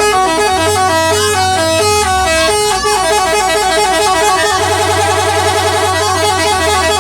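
A bus's 'telolet' musical horn playing a rapid tune of short stepped notes, thickening into several notes at once about halfway through.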